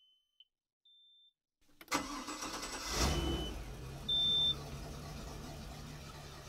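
Short electronic beeps from the helm at key-on, then the Volvo Penta 5.7 V8 inboard engine cranks and catches about two seconds in. It rises briefly and settles into a steady idle, with another loud beep from the dash just after it starts. This is the first start after an oil change, made to check oil pressure and look for leaks.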